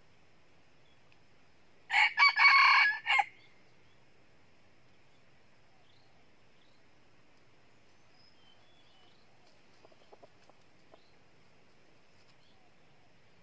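A red junglefowl rooster crows once, loudly, about two seconds in, a short call of about a second and a half broken into a few segments.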